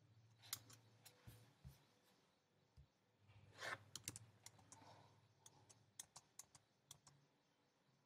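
Faint, irregular keystrokes and clicks on a computer keyboard, with a slightly louder cluster about three and a half seconds in.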